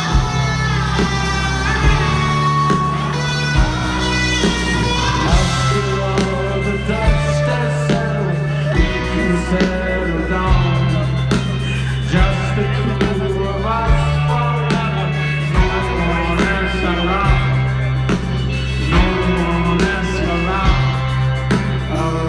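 Rock band playing live through a large stage sound system: drums, bass and guitar with a sung lead vocal. There is a steady beat, and the bass holds each note for about two seconds before moving on.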